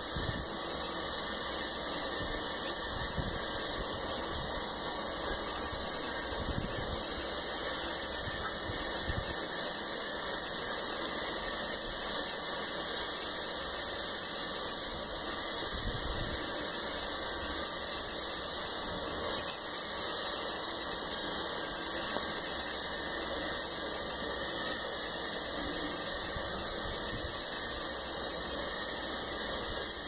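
A steady hiss, with a few faint low thumps.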